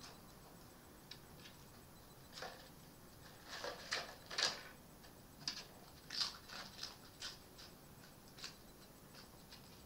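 Red fox eating from a bowl: faint, irregular crunching and clicking as it chews and its teeth knock the dish, busiest in the middle of the stretch.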